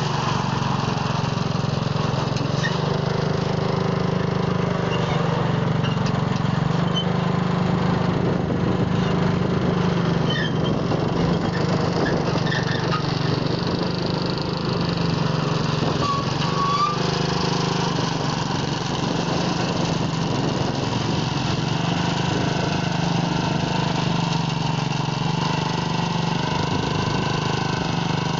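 Heavy-haul truck engine running steadily at low speed, pulling a long multi-axle trailer loaded with a concrete bridge girder.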